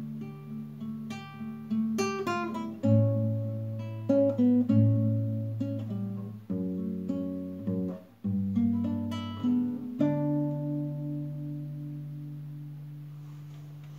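Solo classical guitar playing the closing instrumental bars of a song: picked notes and strummed chords, ending on a chord struck about ten seconds in that rings and slowly fades.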